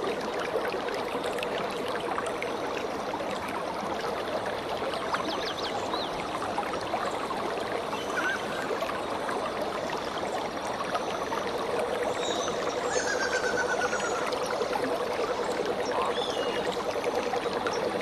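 Shallow mountain river rushing over pebbles and stones: a steady wash of flowing water.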